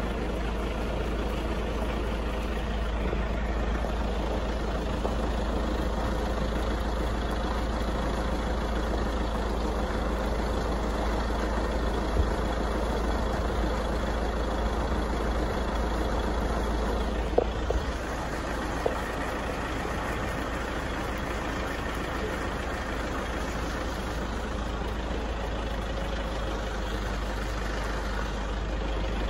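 Game-drive vehicle's engine running steadily at low speed, heard from on board, with a few light knocks about two-thirds of the way through.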